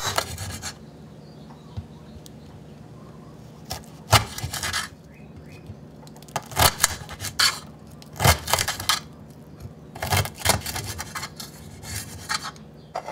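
Kitchen knife cutting Brussels sprouts on a cutting board: several short runs of crisp cuts and scrapes of the blade against the board, a second or two apart, with quiet gaps between.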